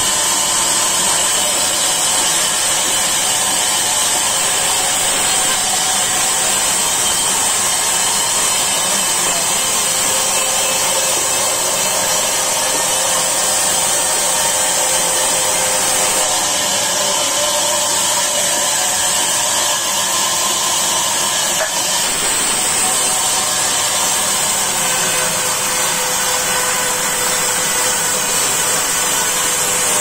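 Large vertical band saw running steadily with a high-pitched whine as it cuts a log lengthwise.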